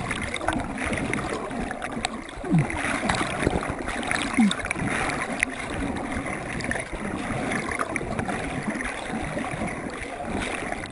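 Muddy water sloshing and splashing close around a body-worn camera as the wearer swims through a mud pit. Two short falling sounds stand out, about two seconds apart.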